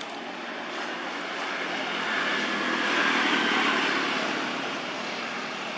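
A road vehicle passing by: its noise swells about two seconds in, peaks, then fades away.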